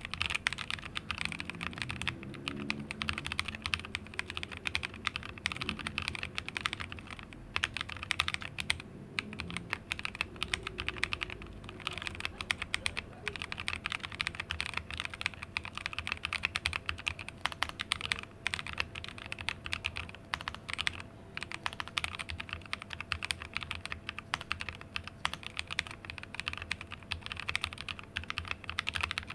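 Steady fast typing on a plateless mechanical keyboard with lubed NovelKey Cream linear switches in an acrylic case: a dense stream of keystroke clacks, each bottom-out sounding as the switch's long stem pole hits the bottom housing.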